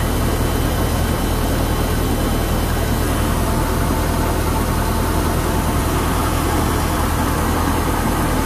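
Volvo Penta 7.4 Gi big-block V8 marine engine idling steadily and quietly.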